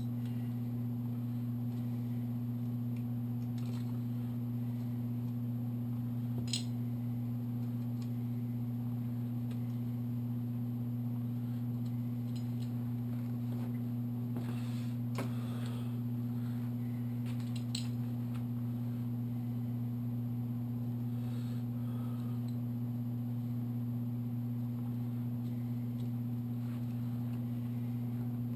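A steady low hum throughout, with a few faint, scattered metallic clicks and clinks of tools and engine parts being handled.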